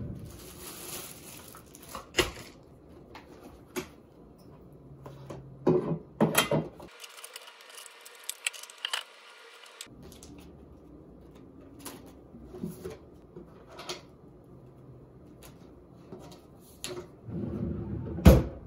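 Bedside-table drawer being emptied by hand: scattered knocks, clatters and rustles of small objects and notebooks being handled, with a louder thump near the end.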